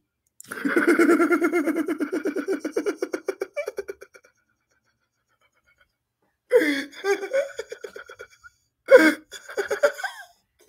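A man laughing hard: a long run of rapid ha-ha pulses lasting about three seconds, then a pause, then two shorter bursts of laughter in the second half.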